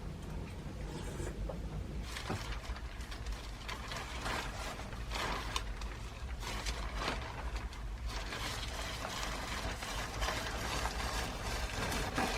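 Knitting needles clicking and scraping against each other as wool is worked, an irregular run of small clicks.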